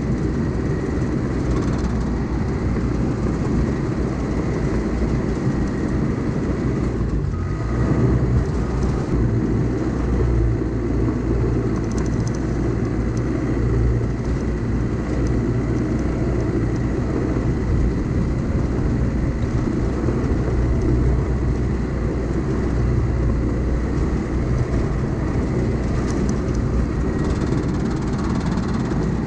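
Diesel engine of a heavy earthmoving machine running steadily under work, with a thin steady high whine.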